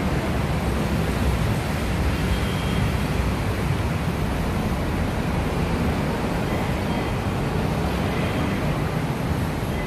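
Steady rumbling background noise of a busy rail-station concourse with a constant hiss, no single event standing out.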